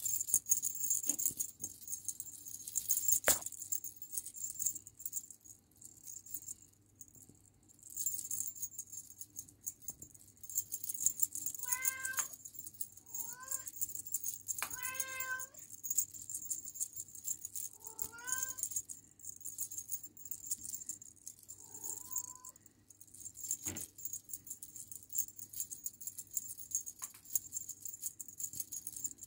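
Ragdoll kitten mewing, about five short high mews in the middle, each rising then falling in pitch. Between them comes the on-and-off rattle of a beaded feather wand toy being waved.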